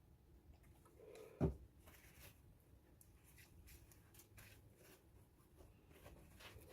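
Quiet room with faint rustling and light handling noises, and one soft low thump about a second and a half in.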